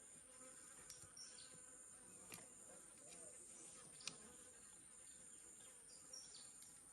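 Faint, steady, high-pitched insect chorus of the kind heard in tropical forest, with a few sharp clicks and a couple of short falling chirps.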